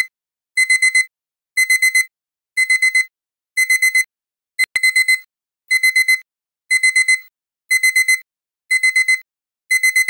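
Digital alarm-clock beeping: fast bursts of four short, high beeps, one burst about every second, signalling that the countdown has finished. A brief click sounds about halfway through.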